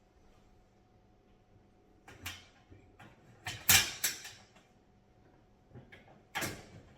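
Sheet-metal parts of a metal raised garden bed knocking and rattling as they are handled and fitted: three short bouts of clanking after a quiet start, the loudest in the middle.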